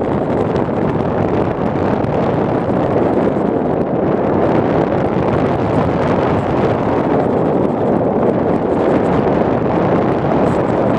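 Steady, loud wind noise rushing over the microphone of the camera carried on a radio-controlled plane in flight.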